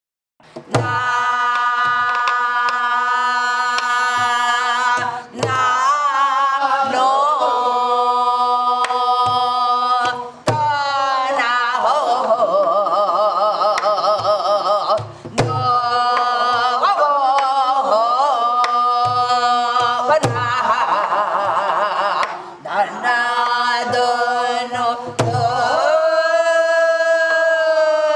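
A woman sings gueum, wordless Korean vocables, in long held notes that at times waver in pitch, over a buk barrel drum struck in gutgeori rhythm.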